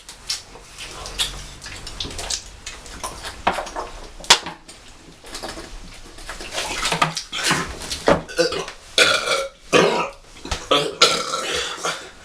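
Men burping after gulping cola: a quieter stretch with a sharp click about four seconds in, then from about halfway several long, loud burps one after another.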